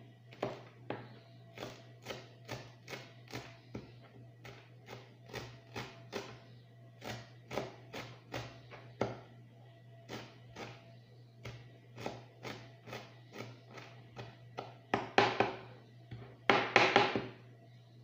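Kitchen knife chopping fresh herbs on a cutting board: a steady run of light taps, about two a second. Near the end come two louder, longer knife-on-board sounds.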